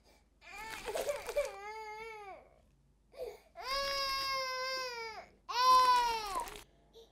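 A high-pitched, child-like crying voice: several drawn-out wailing cries, each falling in pitch as it ends, the last the loudest.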